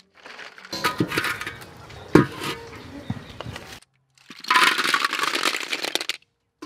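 Hard sea snail shells clattering against one another in a metal mesh strainer, with one sharp crack, then about halfway poured out into a metal wok in a dense rush of clinking and rattling.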